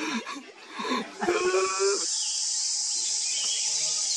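A macaque gives one short, even-pitched bleating call about a second and a half in. Under it, a steady high-pitched insect drone sets in about a second in and carries on.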